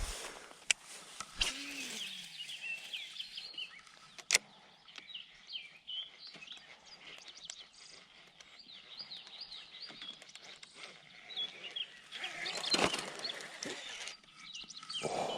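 Small birds chirping over and over, with a few sharp clicks in the first few seconds and a brief louder rush of noise about twelve seconds in.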